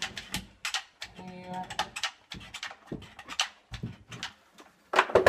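Hot glue gun being worked while glue is applied to drywall backing strips: irregular small clicks and light taps, with a sharper knock near the end.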